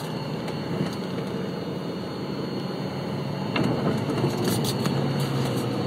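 Vehicle cabin noise: engine hum and tyre noise while driving slowly off an old wooden plank bridge onto a dirt road, with a single click about three and a half seconds in.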